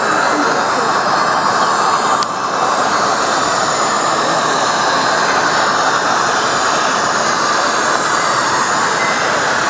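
Steady, noisy running sound from the speaker of a sound-equipped HO-scale Blackstone narrow-gauge steam locomotive, with a brief dip and click about two seconds in.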